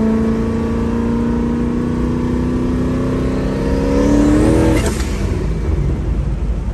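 Turbocharged 363 cu in stroker Ford Windsor V8 in a Fox-body Mustang pulling under load, heard from inside the car, its note climbing slowly with a faint whistle rising over it. About five seconds in the engine note cuts off abruptly, leaving a lower drone.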